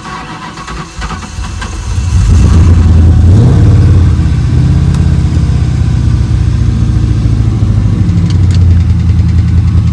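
Swapped-in Ford 4.6 L DOHC V8 from a Lincoln Mark VIII starting up: it catches about two seconds in, revs up briefly, then settles into a steady idle. The engine has a lifter tick that the owner hopes will go away with more run time.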